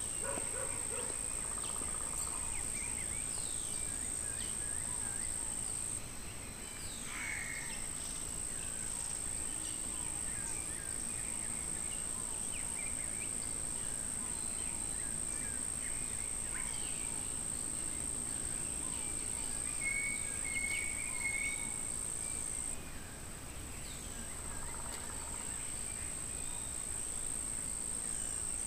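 Insects keep up a steady high-pitched drone that dips briefly twice. Scattered bird chirps and calls sound over it, including a short trill about twenty seconds in.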